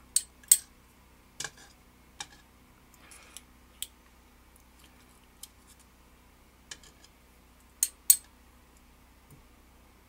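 Sharp little metal clicks of tweezers handling small lock pins and setting them down: about a dozen irregular clicks, the loudest about half a second in and two close together near the end.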